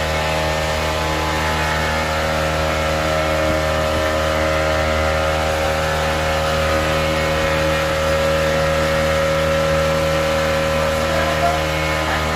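Small outboard motor running at a steady speed, a constant engine drone over an even hiss.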